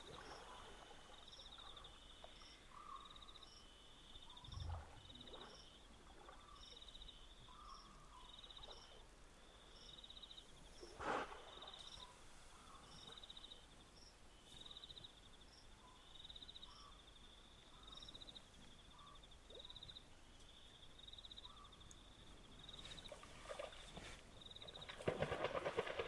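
Quiet African riverside night: a faint, high chirping call repeats steadily about every 0.7 seconds, with a few brief rustles and knocks. Near the end a hippopotamus starts a loud, pulsing grunting call.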